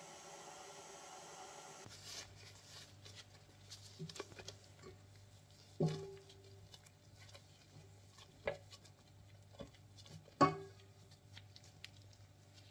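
Stand mixer motor running steadily while the paddle beats shortcrust dough, stopping about two seconds in. Then soft scraping and rustling as dough is worked off the paddle and in the stainless steel bowl, with three knocks against the metal that ring briefly, the loudest near the end.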